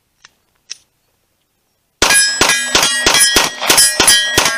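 Rapid fire from a 9mm Glock 48 pistol deliberately fouled with dirt, with hits ringing off steel targets. After a few faint clicks, a fast string of about ten shots starts about two seconds in, each followed by the ring of steel.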